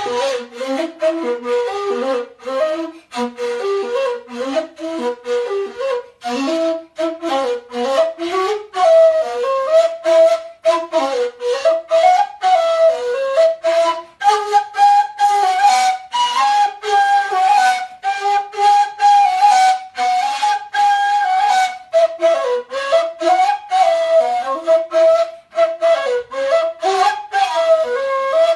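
Bashkir kurai, an end-blown flute, played solo: a quick melody of many short notes, with a stretch of longer held higher notes in the middle.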